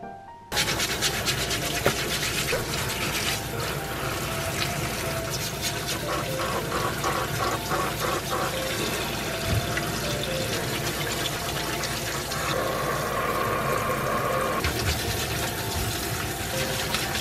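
Tap water running hard into a stainless-steel sink through a mesh strainer, starting suddenly about half a second in, while a brush scrubs scallop shells and then a crab in the stream.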